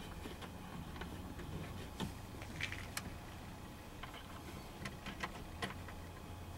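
Scattered light clicks and taps of plastic parts being handled in a 2005 Dodge Caravan's instrument cluster opening, irregularly spaced over a steady low hum.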